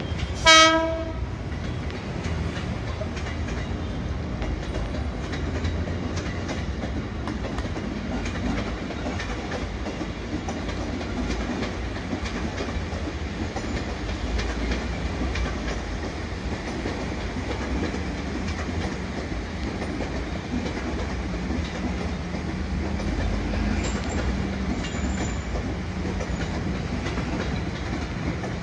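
A KRL Commuter Line electric multiple-unit commuter train gives one short, high horn blast about half a second in as it departs. It then rolls past with a steady rumble and its wheels clacking over the track.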